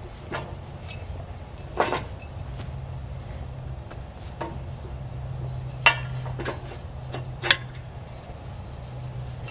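Metal clanks and knocks from a post hole digger's gearbox and boom being handled and fitted into place: three sharper clanks about two, six and seven and a half seconds in, with lighter knocks between, over a low steady hum.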